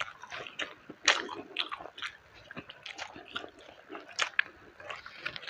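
Close-miked mukbang eating of duck rice with raw vegetables: a person biting and chewing with wet mouth sounds and irregular sharp bite clicks, the loudest about a second in.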